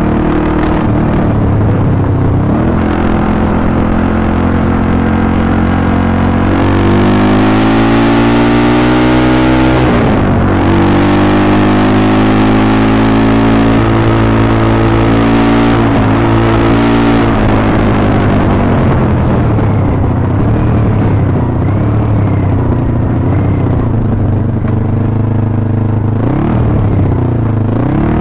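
Thumpstar 140cc pit bike's single-cylinder four-stroke engine pulling along a dirt trail. The pitch climbs and then drops sharply twice, about ten and sixteen seconds in, as it shifts up. Then it runs more evenly with the revs rising and falling, and dips near the end as the bike slows, with wind rush on the microphone throughout.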